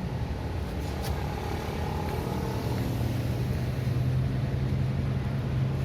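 City street traffic: a motor vehicle's engine running close by, its steady hum growing stronger about two seconds in, over the continuous noise of passing traffic.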